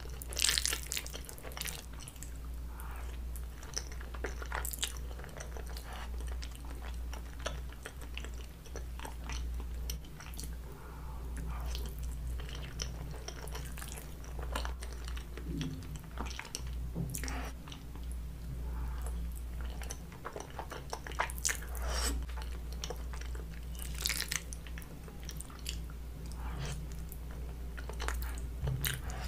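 Close-miked chewing of a mouthful of creamy Alfredo spaghetti, with irregular sharp mouth clicks, over a low steady hum.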